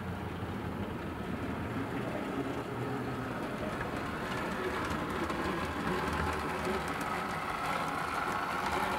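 Model Class 143 two-car diesel unit running over model railway points and double slips, its small electric motor and wheels giving a steady running whir that grows gradually louder as it comes across the junction.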